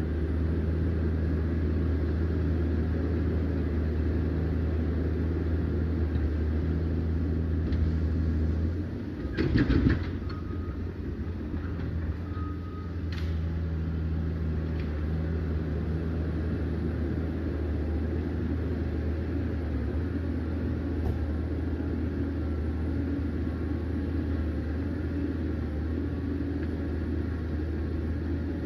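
Liebherr PR 744 crawler dozer's diesel engine running steadily under a low drone, with a brief burst of clatter about nine to ten seconds in.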